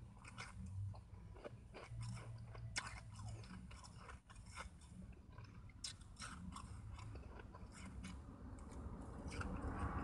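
A person chewing a mouthful of shaved ice, with a rapid, irregular run of crisp crunches as the ice is bitten and ground between the teeth.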